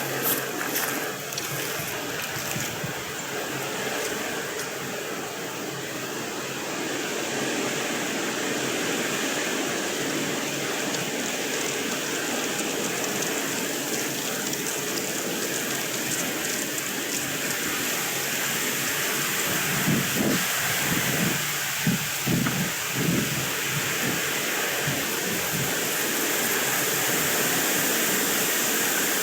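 Wind blowing across the microphone: a steady rushing hiss, with a few gusts rumbling about twenty seconds in.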